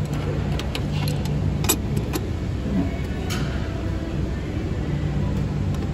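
Scattered sharp metallic clicks and taps of a hand tool being fitted and worked up under the truck, over a steady low hum.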